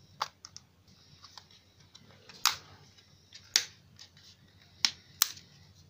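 Plastic back cover of a JioPhone feature phone being pried off with fingernails, its snap clips releasing in a series of short, sharp clicks. The two loudest snaps come about two and a half and three and a half seconds in.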